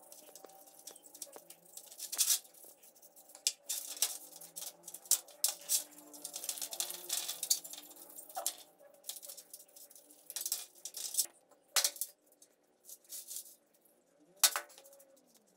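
Small brush scrubbing a wet, rusty air-compressor cylinder head in a metal tray: irregular bursts of scratchy strokes, with clicks and knocks of metal on the tray and a sharp knock near the end.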